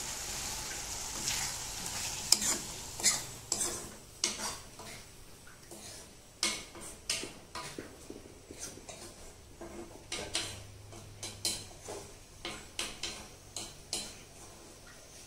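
Metal spoon scraping and clinking against a black iron kadai as a thick curry is stirred, in a string of short strokes several a second. A soft sizzle from the hot pan underlies the first few seconds.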